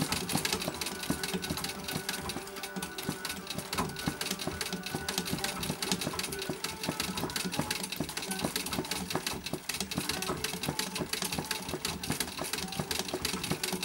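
Vintage treadle straight-stitch sewing machine running steadily, its needle clattering in a rapid, even rhythm while stitching free-motion embroidery through hooped fabric.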